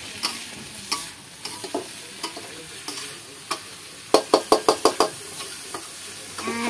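Metal spatula stirring and scraping food frying in a wok over a wood fire, with a steady sizzle under it. About four seconds in comes a quick run of about six sharp taps of the spatula against the wok.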